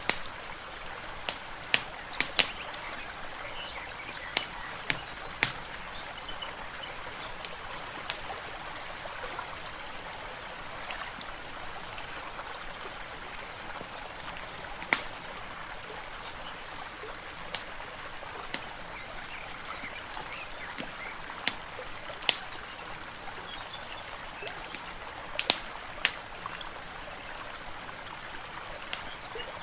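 Steady trickling water with sharp wood-fire crackles and pops at irregular intervals, a few in quick clusters.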